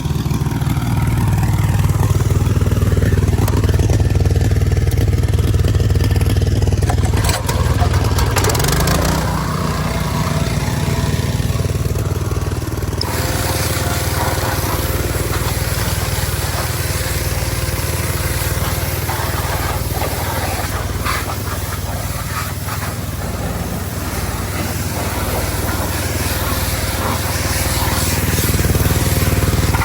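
A small gasoline engine running steadily, its pitch rising briefly about eight seconds in. From about thirteen seconds a steady hiss joins it.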